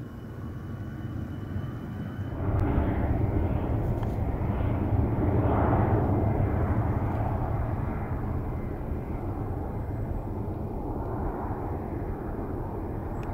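Airbus A380-861's four jet engines (Engine Alliance GP7200 turbofans) running with a steady rumble as the aircraft taxis onto the runway. The rumble steps up sharply about two and a half seconds in, swells for a few seconds, then settles.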